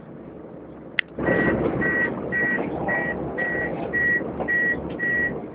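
A click, then the bus's door warning beeper sounding a steady high beep about twice a second over a louder rush of noise from the doors and cabin, on a Volvo B7TL Plaxton President double-decker.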